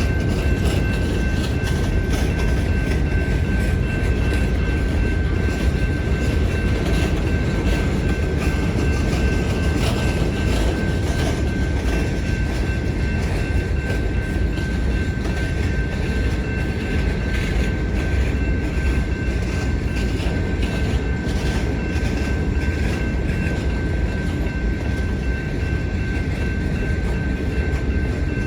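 Lake State Railway freight train rolling past, with a steady rumble and frequent clicking of wheels over rail joints. A thin, steady high whine runs over the top.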